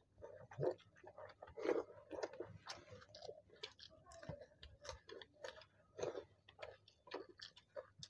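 Chewing and mouth sounds of people eating rice and fried vegetable fritters by hand, with many irregular short clicks and smacks.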